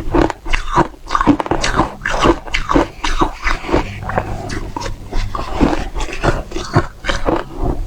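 Close-miked crunching of dry-textured frozen matcha ice being bitten and chewed: a quick, uneven run of crisp cracks, several a second.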